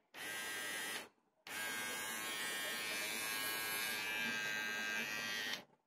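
Nova NG1090 cordless hair trimmer's motor running with a steady buzz: switched on for about a second, off for a moment, then on again for about four seconds before being switched off. Little sound for a powerful motor.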